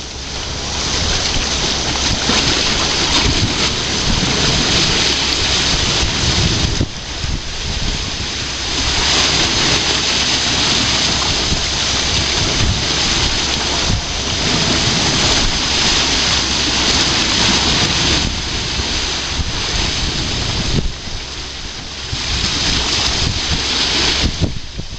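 Water rushing and churning down into a whirlpool over a navigation lock's underwater filling intake, surging and easing unevenly as the lock chamber nears the river's level. Wind buffets the microphone.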